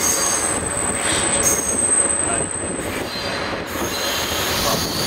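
Sleeper train moving out of the station, its wheels running noisily over the tracks, with a thin, high, steady squeal from the wheels for about two seconds mid-way.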